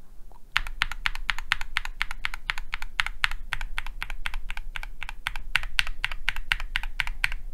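Steady typing on a mechanical keyboard fitted with stock, unlubricated Gateron Baby Raccoon, Gateron G Pro 2.0 and JWick Yellow switches under AKKO keycaps. The keystrokes come as sharp clacks, about six a second, starting about half a second in.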